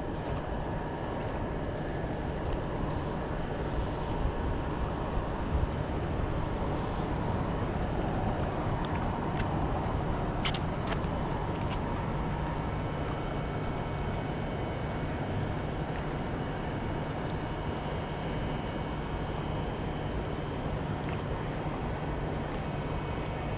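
Steady rush of a flowing river, with a few faint clicks about ten seconds in.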